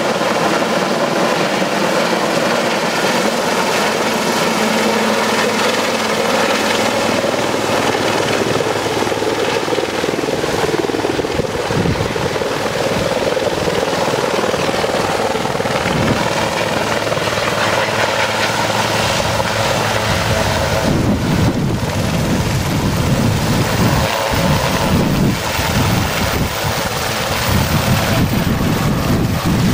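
Sikorsky S-76 air ambulance helicopter coming in to land: turbine whine and rotor noise running steadily, with a low rumble that builds from about a third of the way in and turns heavy and uneven near the end as it descends close overhead.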